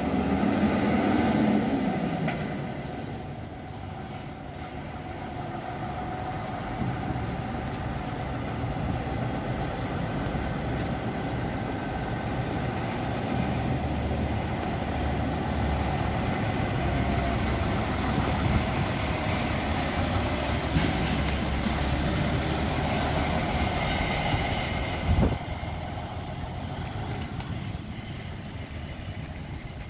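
DAF N 3300 DKX truck's turbocharged, intercooled six-cylinder diesel running as the truck drives off. It is loudest in the first couple of seconds, dips, builds again as the truck comes past, and fades as it pulls away in the last few seconds, with one brief sharp knock near the end.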